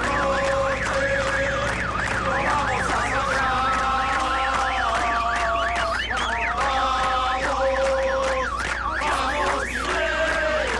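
Electronic siren sweeping rapidly up and down in pitch, about three sweeps a second, without a break, over held musical notes.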